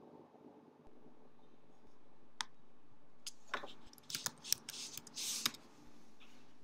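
Scattered clicks and taps of a computer keyboard and mouse, a single one and then a quick cluster, over a low steady hum.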